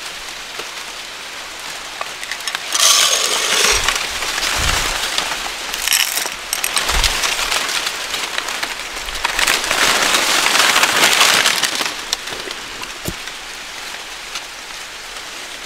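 Dry, brittle cornstalk leaves and husks rustling and crackling, in swells that rise and fall, with a few low bumps.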